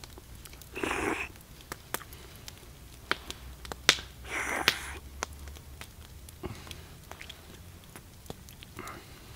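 A man eating roasted deer bone marrow scooped out with a stick: scattered small clicks and mouth sounds, with two short breathy rasps, one about a second in and another around four and a half seconds.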